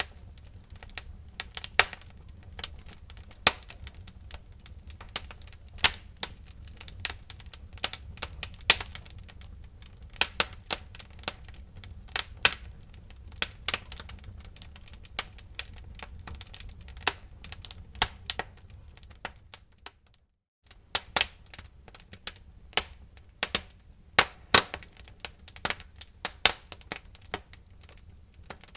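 Wood fire burning in a fireplace, crackling and popping: irregular sharp pops, some much louder than others, over a low steady rumble of the flames. The sound drops out for about half a second about two-thirds of the way through.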